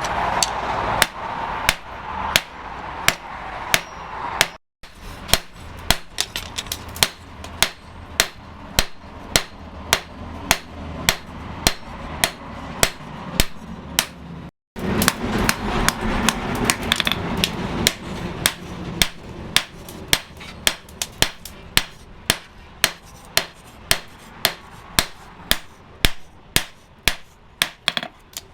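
Hand-hammer blows on hot steel against an anvil as a bearing is forged into a knife blank, about two strikes a second, each with a short metallic ring.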